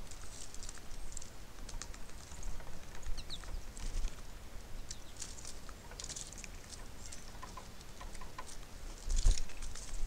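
Small birds at a feeder: rapid, scattered tapping and clicking of beaks and feet on the feeder and seed, with a few faint high chirps. There is a heavier thump about nine seconds in.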